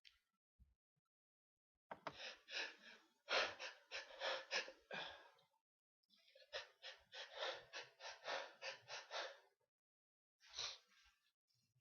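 A person's quick, breathy gasps in two runs of rapid pulses about three seconds each, followed by a single short gasp near the end.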